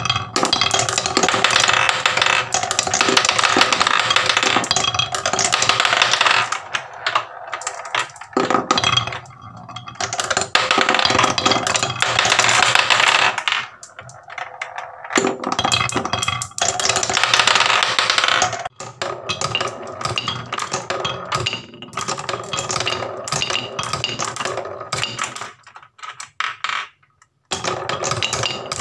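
Marbles rolling round a wooden bowl carved with concentric grooves, rattling over the ridges in a dense, continuous clatter. It comes in several long spells that swell and fade, with short lulls between.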